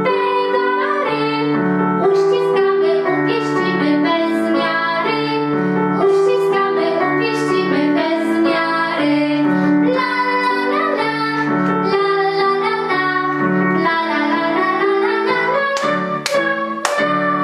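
A woman and a girl singing a Polish children's song together to a digital piano accompaniment. Near the end come two sharp claps, the clap that follows the chorus.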